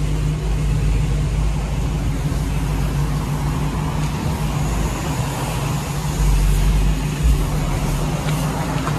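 Motor vehicle engine running steadily at idle, with a constant low hum and a wash of background noise.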